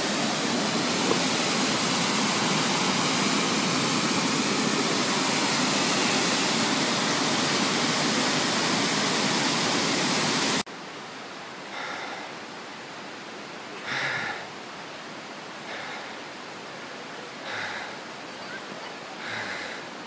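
Waterfall with a steady, loud rush of falling water that cuts off suddenly about ten seconds in. A much quieter outdoor background follows, with a few brief, faint voices.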